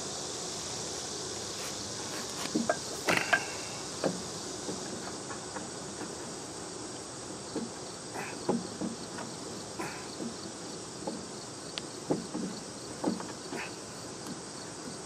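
Short metal clunks and knocks, a dozen or so at uneven intervals, as a backhoe's hydraulic cylinder is handled and lined up with its mount, over a steady high drone of insects.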